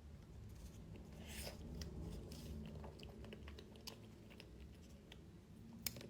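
Faint chewing of a pastry: soft, scattered mouth clicks and smacks.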